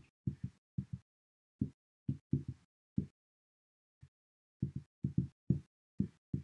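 Marker strokes on a glass lightboard: a string of short, separate taps and scrapes in little clusters as tick marks and labels are drawn along an axis.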